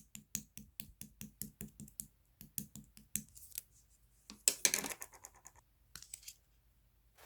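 Yellow jelly slime being pressed and poked by fingers, giving a quick, even run of small sticky clicks about five a second, then a louder, denser crackle about four and a half seconds in and a few last clicks.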